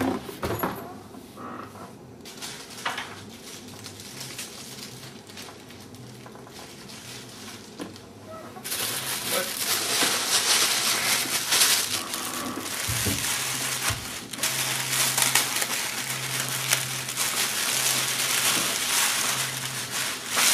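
Plastic packing bag crinkling and rustling close to the microphone, starting suddenly about nine seconds in and going on unevenly; before that only quiet room noise with a few faint knocks.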